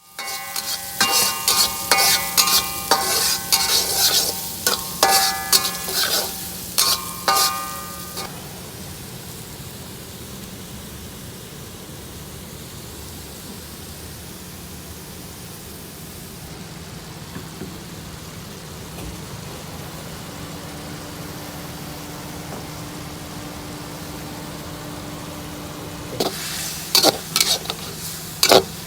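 Stir-frying: a metal spatula repeatedly striking and scraping a pan with ringing clangs, then a steady sizzle of food frying, with the clanging starting again near the end.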